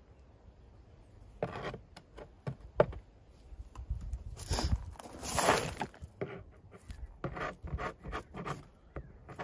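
Hand tool scraping and cutting at wood in irregular strokes, with a sharp knock about three seconds in and a longer scrape around the middle.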